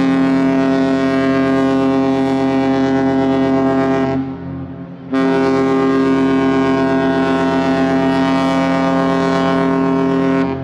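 Cruise ship's horn sounding two long, loud, steady blasts with a brief break about four seconds in: a departure signal as the ship leaves the dock.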